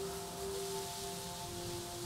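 Slow ambient background music of long held notes that shift gently from one to the next, over a faint hiss.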